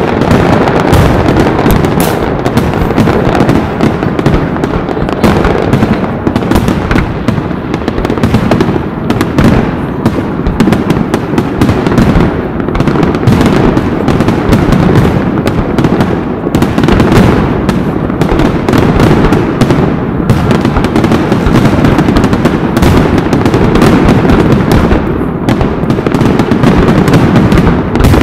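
Dense, continuous barrage of fireworks: overlapping bangs and crackles one after another with no pause.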